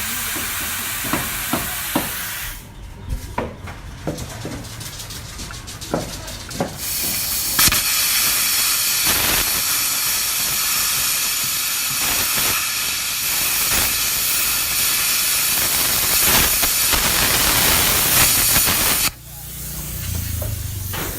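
Plasma cutter running. A hissing air jet and arc with scattered sharp crackles and clicks, then a long, loud, steady hiss of about eleven seconds that cuts off suddenly near the end.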